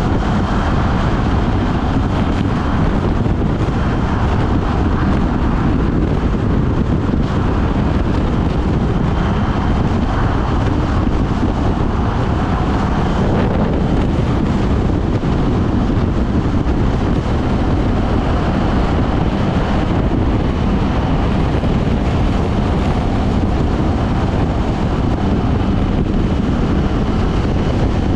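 Steady wind rush over the microphone at highway speed on a KTM 790 Duke motorcycle, with the bike's parallel-twin engine and tyre noise underneath.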